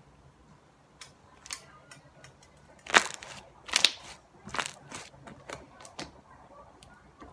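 Sticky slime mixed with floof being squeezed and pulled apart by hand, giving a handful of irregular sharp pops and crackles, the loudest about three seconds in.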